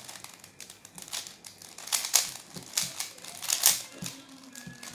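Oval cylinder-shaped plastic twisty puzzle, a Rubik's-type cube, being turned fast during a speed solve: a quick, irregular run of clicks and clacks as the layers snap round, loudest about two seconds in and again near four seconds.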